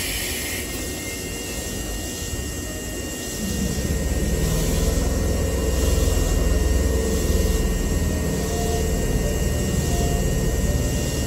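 Low, steady rumble and hum of electric train equipment at a station platform. It comes in about three and a half seconds in and then holds steady.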